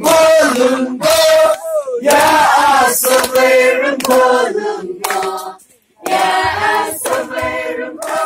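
A group of voices singing together in short phrases of about a second each, with a brief pause a little before six seconds in.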